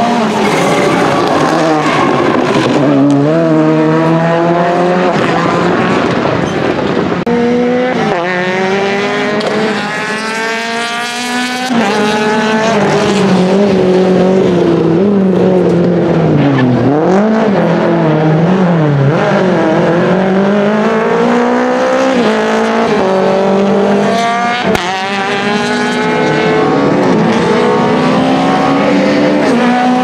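Rally cars' engines revving hard at full throttle, a Volkswagen Polo GTI Rally2 and later a Renault Clio. The pitch climbs repeatedly through the gears, drops sharply at each shift, and falls and rises again through the corners.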